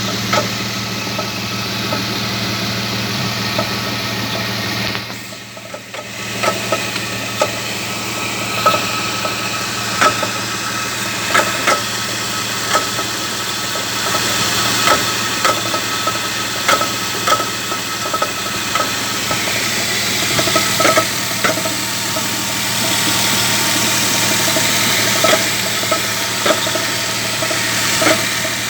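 An engine running steadily with a repeated knocking from within it, irregular sharp knocks roughly once or twice a second over the hum. The sound briefly drops away about five seconds in.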